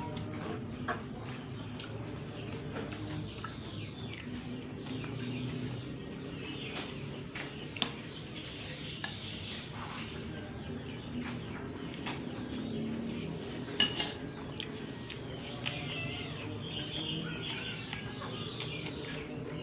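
Cutlery and dishes clinking during a meal, with a few sharp clicks, the loudest around 8 and 14 seconds in. Birds call in the background.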